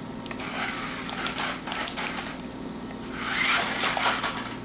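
Sharper Image Flip Stunt Rally toy RC car driving on a kitchen floor, its small electric drive motors running with a rapid clattery rattle. The rattle swells louder for about a second near the end.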